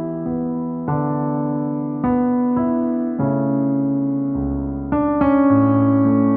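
Piano music: slow chords struck about once a second and left ringing.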